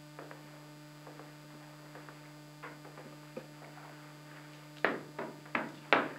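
Steady low electrical hum with faint scattered ticks, then four sharp knocks in quick succession about five seconds in.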